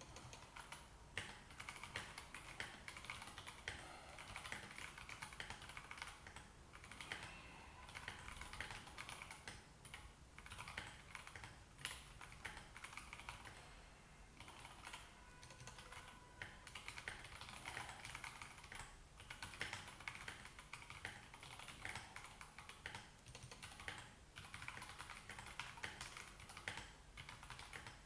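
Continuous typing on a Royal Kludge RK84 mechanical keyboard with stock Gateron Yellow linear switches and thick XDA-profile PBT keycaps. It is a fast, steady stream of key clacks with a few brief lulls.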